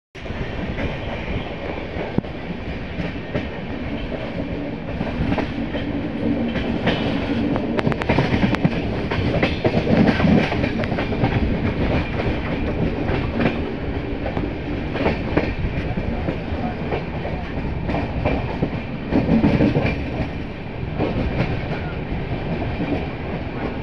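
Indian Railways passenger coach running along the track, heard from a coach window: a steady rumble of wheels on rail with irregular clickety-clack over rail joints.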